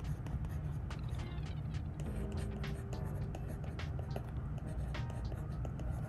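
Apple Pencil with a metal ballpoint-style tip scratching and tapping across an iPad screen fitted with a Paperlike matte screen protector as words are handwritten: quick, irregular little scratches and ticks, over a steady low hum.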